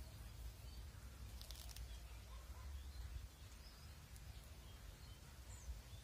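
Quiet outdoor ambience: a low steady rumble, like wind on the microphone, with faint scattered bird chirps and a brief crackle about a second and a half in.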